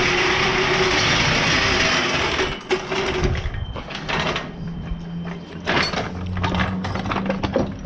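Impact wrench running in bursts, spinning off a car wheel's lug nuts: one long rattling burst in the first couple of seconds, then a lower-pitched run through the second half.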